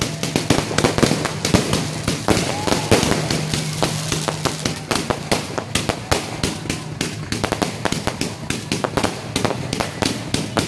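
Fireworks display: a rapid, unbroken string of bangs and crackles, several a second, from rockets and aerial shells bursting overhead.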